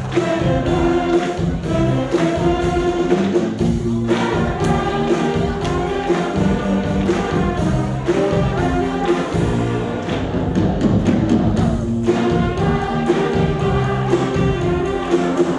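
A school concert band of clarinets, flutes, saxophones and trumpets playing a piece together in sustained chords.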